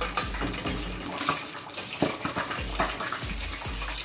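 Whole fish deep-frying in a pot of hot oil, sizzling and crackling, as a slotted spoon lifts it out now that it is done.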